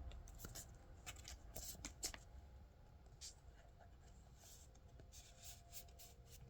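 Faint scratchy rustling and light clicks of a trading card being slid into a plastic card sleeve, in short strokes that come in two spells.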